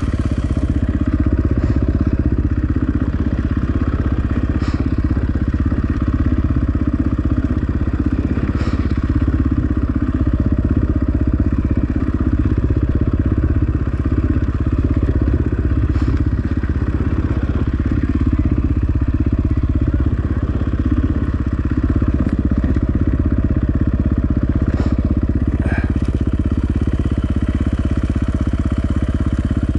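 Dirt bike engine running steadily with a low, even rumble and no revving, with a few faint clicks over it.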